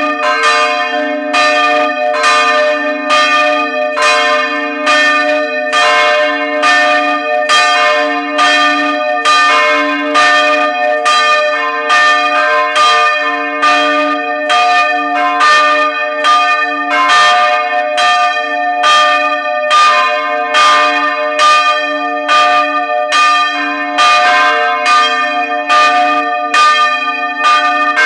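Several church bells ringing together up close in the belfry. A steady, even run of overlapping strokes, with the bells' deep hum carrying on between them.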